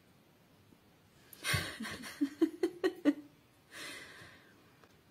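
A person's breathy laughter: a run of short chuckling bursts, then a breathy exhale.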